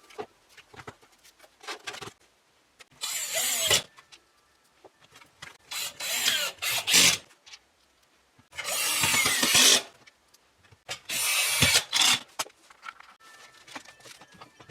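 Four bursts of rustling and rubbing, each about a second long, with small clicks between them, from handling a PC power supply and its cables.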